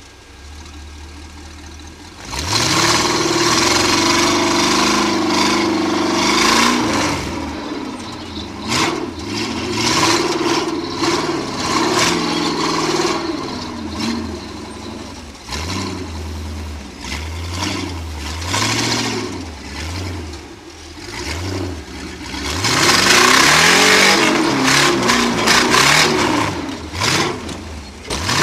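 Rock-racing buggy's engine heard from inside the open cockpit, idling briefly and then revving hard and repeatedly in rising and falling bursts as it climbs a rock trail. Scattered knocks and clatter run through it.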